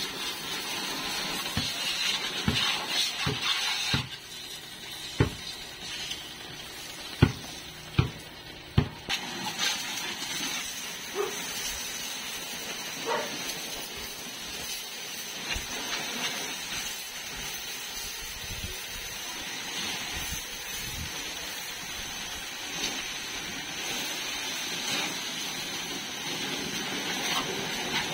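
Electric pressure washer running, its jet spraying water onto a motorcycle and the wet pavement in a steady hiss that turns quieter about four seconds in, with a few sharp knocks between about five and nine seconds in.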